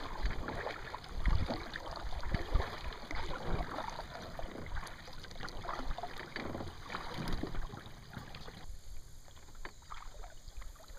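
Kayak paddle strokes: irregular splashing and dripping water with light knocks, easing off near the end.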